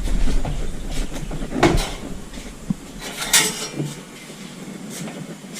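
A washing machine powering up after a repair: a low hum that fades out and a few separate clicks and clunks.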